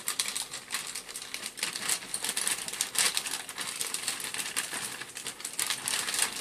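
Plastic model-kit parts on their sprues and the plastic bags they are packed in being handled: a dense run of crinkling and light clicks.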